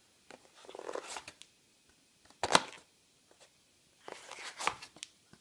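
A cardboard egg carton being opened and closed: a creaking rustle of the lid, a sharp snap about two and a half seconds in, then more creaking with a click near the end.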